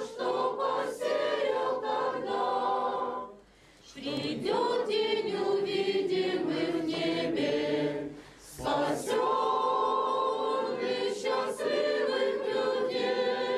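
Church congregation singing a harvest hymn in Russian, men's and women's voices together, with two brief breaks between phrases, about three and a half and eight seconds in.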